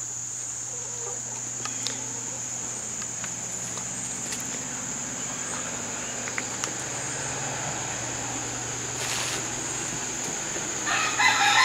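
A steady high-pitched insect drone over a faint low hum, with a few soft knocks. Near the end, chickens start calling loudly.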